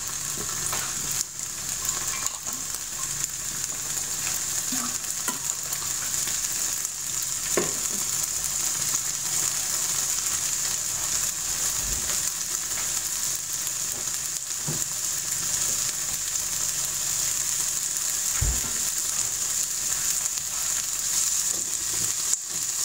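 Brined red pepper strips frying in a little olive oil in a nonstick pan: a steady, high sizzle as the water from the brine cooks off, with a few light knocks and a spatula stirring near the end.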